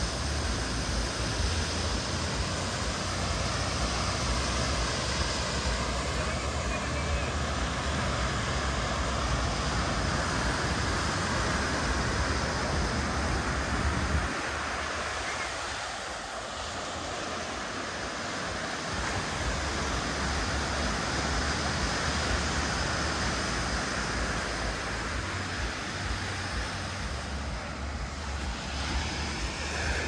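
Sea surf washing onto a beach, a steady rush, with wind rumbling on the microphone. The low wind rumble drops away for a few seconds around the middle.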